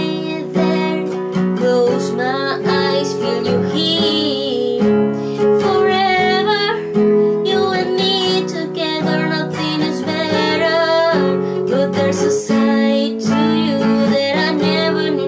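A woman singing a pop ballad with vibrato on held notes, accompanied by a strummed acoustic guitar.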